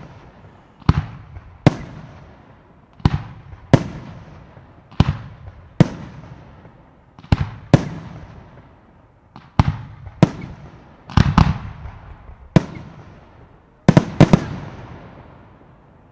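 Aerial fireworks firing and bursting one after another: a regular run of sharp bangs, mostly in pairs about two seconds apart, each with a short rumbling tail. A quicker cluster of bangs comes near the end.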